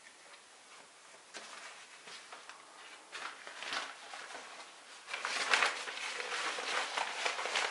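Irregular rustling and scuffing from a person moving about and handling things. It is faint at first and gets louder about five seconds in.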